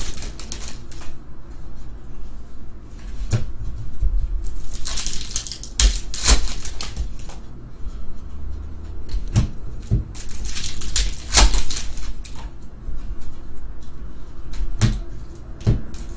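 Crinkling of a foil trading card pack wrapper as it is opened, then a stack of cards rustling and sliding against each other as they are leafed through, in irregular bursts with scattered clicks and a few low thumps of handling.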